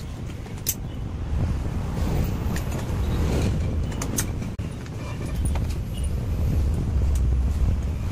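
Motor-vehicle engine rumble, steady and low, with a few sharp metallic clicks over it.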